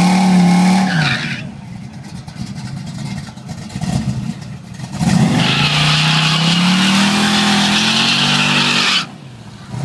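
1986 Chevrolet Monte Carlo SS small-block V8 doing a burnout on drag radials. After a short burst of wheelspin at the start and a few seconds of lower running, the engine is held high from about five seconds in, its pitch climbing steadily while the rear tyres spin and squeal. Both cut off abruptly about a second before the end.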